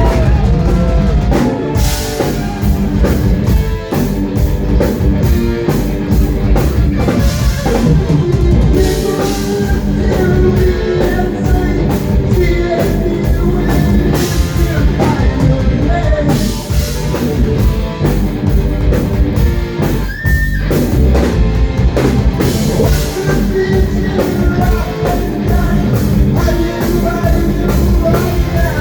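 Live rock band playing loud: drum kit, distorted electric guitar and bass, with a singer.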